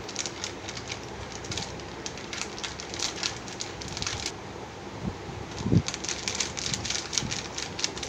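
Plastic spice packet crinkling and rustling in clusters of short crackles as ground cumin is tipped onto chicken in a steel bowl, with a soft knock about six seconds in.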